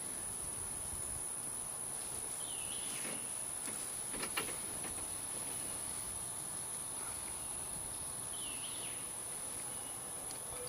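Steady high-pitched insect trilling, with a short bird call about two and a half seconds in and another near the end, and a faint tap about four seconds in.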